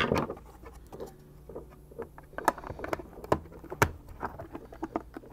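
Plastic case of a Bush portable Bluetooth speaker being closed and turned over by hand on a wooden desk: a string of small clicks and taps, with a sharper knock at the very start and a few louder clicks around the middle.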